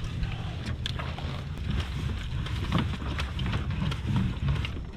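Wind on the microphone and water noise aboard a small boat, with scattered knocks and rustles as a crab-pot buoy and its line are thrown over and a hoop-net line is hauled in by hand.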